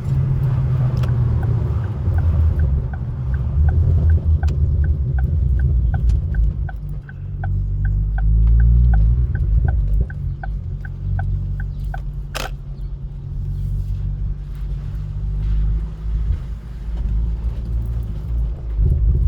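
Ford Focus ST engine running with a steady low rumble. A light ticking, about three ticks a second, runs through the first half, and there is one short squeak a little past halfway.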